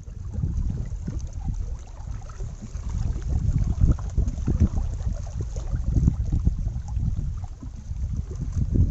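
Wind buffeting the microphone: a gusting low rumble that comes up suddenly at the start and grows stronger from about three seconds in.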